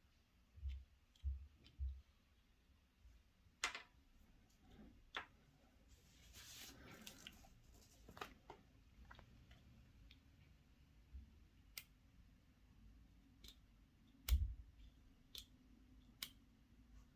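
Faint handling of chocolate surprise eggs and their plastic toy parts: scattered light clicks and taps, a brief rustle of wrapper about six seconds in, and a few soft low thumps on the table.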